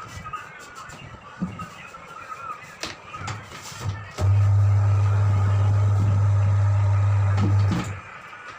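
An electric power tool's motor runs with a steady low hum for about three and a half seconds, switching on about four seconds in and off near the end, with light clicks and knocks before it.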